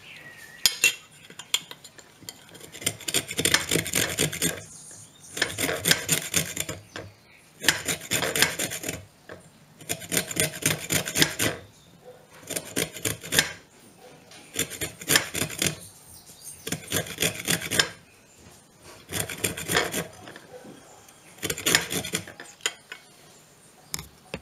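Lime rind being zested on a small metal box grater: quick rasping strokes in about nine spells of a second or so each, with short pauses between.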